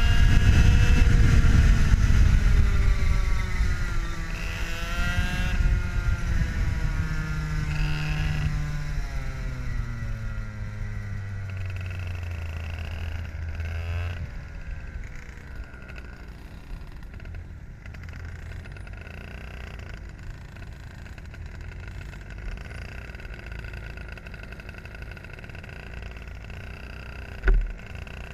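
IAME two-stroke kart engine racing, heard onboard, its pitch rising and falling over and over as the driver accelerates out of corners and lifts into them. Louder in the first half with other karts close by, then quieter. A single sharp knock near the end.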